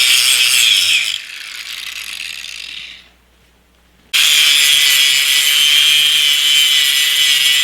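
Handheld power grinder grinding mill scale off the surface of a steel plate: a short loud pass that eases off and winds down, a brief pause, then a longer steady pass starting about four seconds in.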